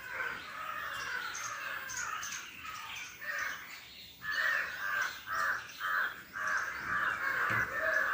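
Birds calling: chattering calls at first, then from about halfway in a steady run of caws, two or three a second.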